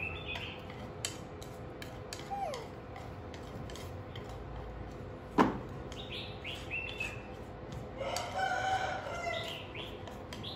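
Chopsticks scraping fried rice out of a metal frying pan into a bowl, with light clicks and one sharp knock about halfway through. Short high chirps sound in the background, and a longer crowing call comes near the end.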